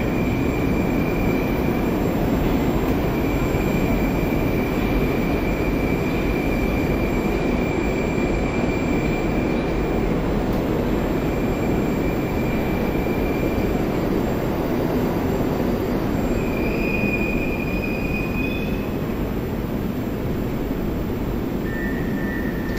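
Moscow Metro 'Moskva-2019' (81-765) train running along the line: a steady rumble of wheels on rail, with a thin, high wheel squeal that comes and goes and is strongest for a couple of seconds past the middle.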